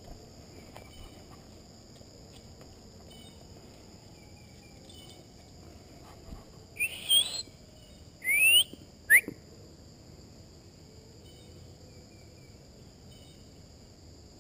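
A person whistling three times, about seven seconds in, each a loud whistle rising in pitch, the last one short: a call to bring the dogs back. A steady high insect drone runs underneath.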